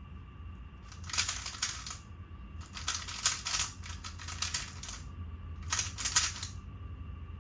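A 3x3 speedcube being turned rapidly by hand, its layers clicking and clacking in three bursts of fast turns: about a second in, from about two and a half to five seconds, and briefly near six seconds.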